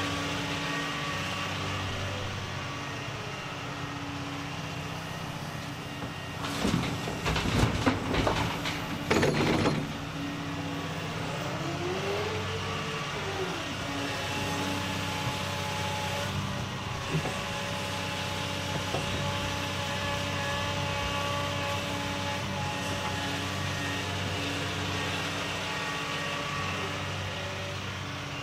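Doosan DX235LCR excavator working: its diesel engine runs steadily under hydraulic pump whine, which rises and falls once about halfway through, then holds steady. For about three seconds before the middle, loud scraping and clattering comes from the steel bucket digging into soil and stones.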